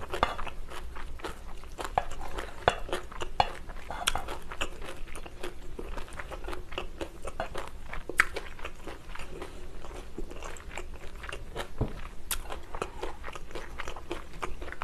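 A person chewing and eating bibimbap, with frequent small crunches and wet mouth clicks.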